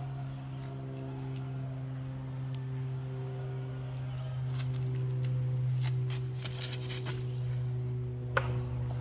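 A steady low hum at one unchanging pitch, with a few faint clicks and ticks scattered over it, the sharpest about eight and a half seconds in.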